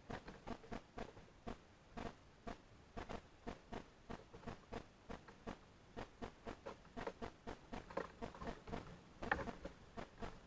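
Birds pecking at seed in a feeder: an irregular run of sharp tapping clicks, several a second, with a louder cluster about nine seconds in.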